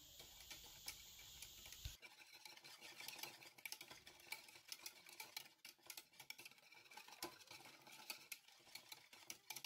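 Faint, quick, irregular clicking and scraping of a wire whisk beating a thin egg-and-milk mixture against the sides of a ceramic bowl, starting about two seconds in.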